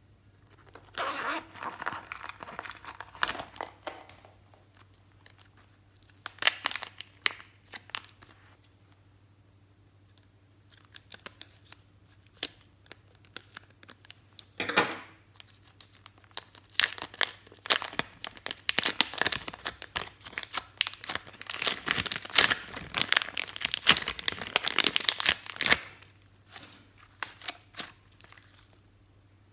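Crinkling and rustling of a plastic zip-lock bag as pink slime is squeezed and handled through it, in separate bursts with quiet gaps and a long dense stretch of crackling late on. Earlier there are short bursts of handling on a small zippered coin purse.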